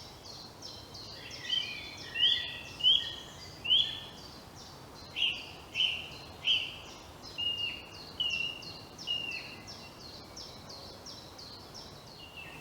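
Small woodland songbirds calling: a rapid, even series of high thin notes all through, joined by louder, lower repeated notes, about one or two a second, from about a second and a half in until near the end.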